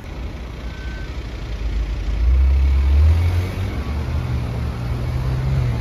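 A car's engine rumbling deeply, building about two seconds in and loudest around three seconds, then running on at a steadier low note.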